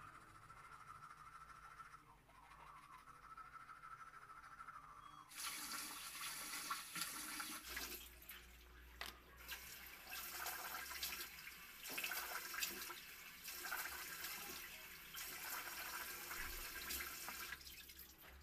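Faint toothbrush scrubbing for the first five seconds, then a kitchen tap suddenly starts running into the sink, with splashing as hands rinse under it. The water stops just before the end.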